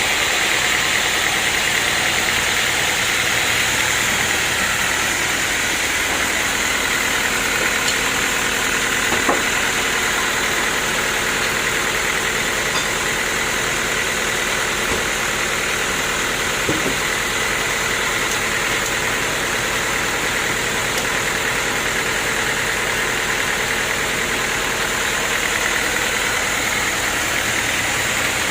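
A portable sawmill running steadily, its engine and blade making a constant loud noise with two faint ticks partway through.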